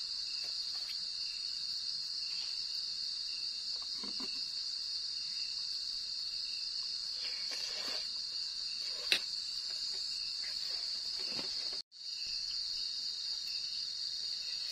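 Steady high-pitched chorus of night insects, like crickets, with a few faint clicks of a spoon in a metal pot and one sharper click about nine seconds in. The sound drops out for a split second near twelve seconds.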